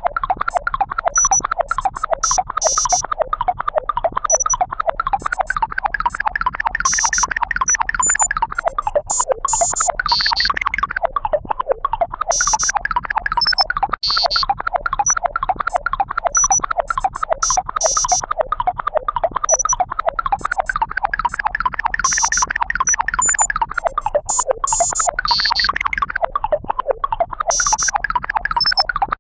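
A continuous, very rapid stream of synthesized electronic key bleeps. The pitch swells up and falls back every few seconds.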